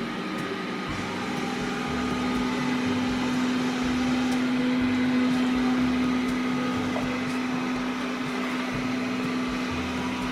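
Lydsto R1 robot vacuum-mop running as it drives about cleaning, a steady motor hum that grows louder toward the middle and eases off again.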